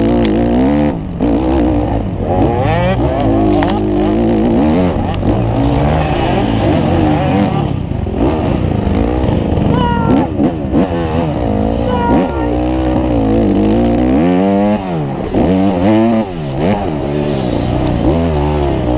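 Motocross bike engine heard from on board, revving hard and dropping off again and again as the rider works the throttle and gears, with another dirt bike's engine close by.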